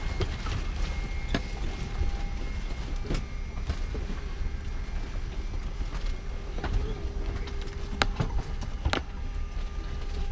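Passenger cabin ambience of a McDonnell Douglas MD-82: a steady low rumble with several sharp clicks and knocks scattered through it as passengers move about the aisle.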